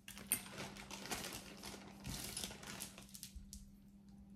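A beaded necklace being picked up and handled, its beads clicking against each other and the table in a dense run of small clicks and rustles for about three seconds, then a few scattered clicks.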